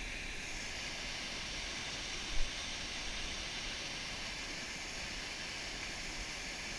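Steady rushing hiss of water pouring over a concrete dam spillway into the river, with one brief thump about two and a half seconds in.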